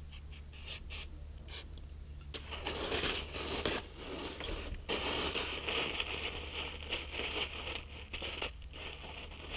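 Paper towel scrubbing and scraping over a painted engine valve cover, wiping off brake cleaner and dirt, with paper rustling. A few small handling clicks come in the first couple of seconds before the steady wiping starts.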